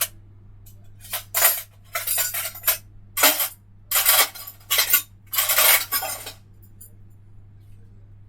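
A sharp click, then a string of short clattering noises, roughly eight in about five seconds, starting about a second in and stopping after about six seconds, the kind made by handling dishes or cutlery.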